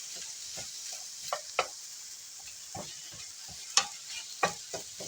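Food sizzling steadily in a frying pan while a utensil stirs it, scraping and clicking against the pan at irregular moments.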